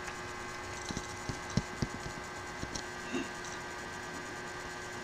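Steady low electrical hum and hiss with about six soft, scattered clicks in the first three and a half seconds.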